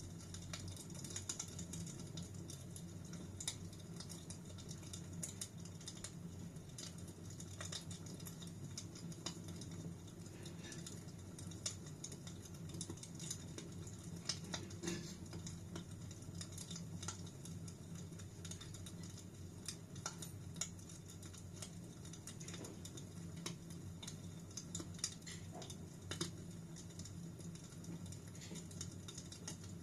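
Wood fire crackling in a fireplace: frequent irregular snaps and pops over a steady low rumble of the flames.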